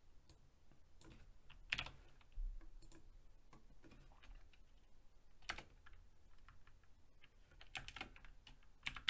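Faint, irregular keystrokes on a computer keyboard, with a few louder key presses about two seconds and five and a half seconds in, and a quick run of keys near the end.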